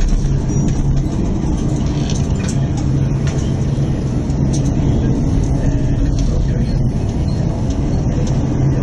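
Steady, loud storm noise aboard a container ship, heard from the bridge behind the window glass: a dense rumble of wind and heavy sea over a low, steady hum, with scattered light ticks.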